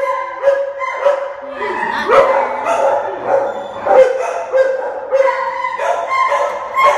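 Dog barking steadily in a kennel, about two barks a second.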